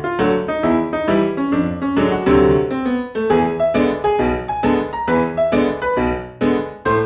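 Background music: a piano playing a steady run of notes.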